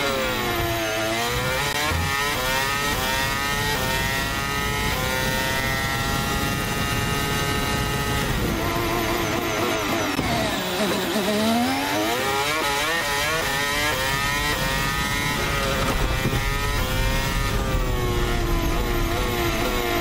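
Onboard sound of a Ferrari Formula 1 car's turbocharged V6 hybrid engine at racing speed, its pitch climbing in steps through quick upshifts. About ten seconds in the pitch drops sharply through a run of downshifts under braking, then climbs again as it accelerates back up through the gears.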